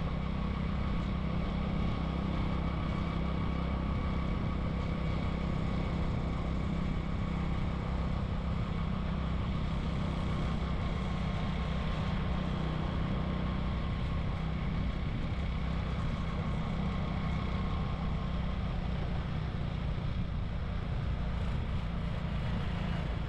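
Motorbike engine running steadily while riding, with wind and road noise.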